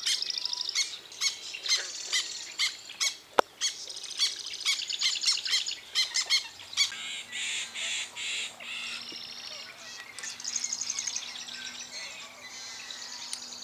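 Marsh birds calling: many short, harsh calls and rapid buzzy trills, among them the squawking song of a yellow-headed blackbird. A single sharp click about three and a half seconds in.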